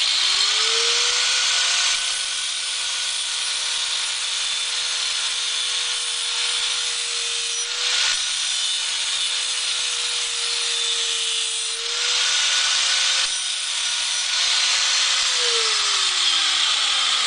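Angle grinder spinning up and grinding down a metal tube, its motor whine holding steady under a harsh grinding hiss with a couple of brief changes in load, then winding down near the end.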